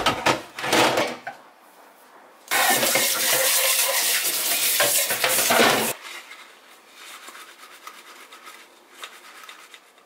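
Hard plastic slicer parts clattering against each other and a stainless steel sink as they are washed by hand. A tap runs for about three seconds in the middle, starting and stopping abruptly, followed by light knocks of the parts being handled.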